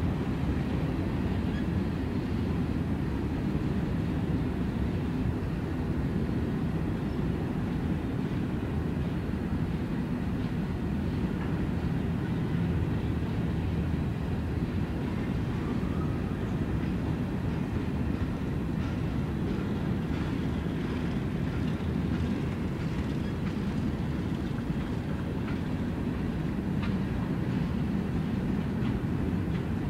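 Freight train's covered hopper cars rolling past at a steady pace: an even, low rumble of steel wheels on rail, with a few faint clicks in the second half.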